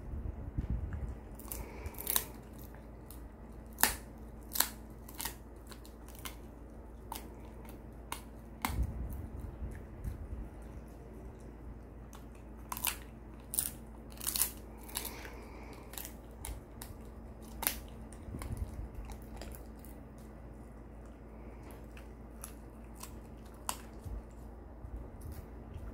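Shiba Inu biting and chewing a hard, crumbly bone-shaped chew treat, giving irregular sharp crunches, several close together around 2–5 s and 13–18 s. A few low dull bumps come about a second in, around 9 s and around 18 s.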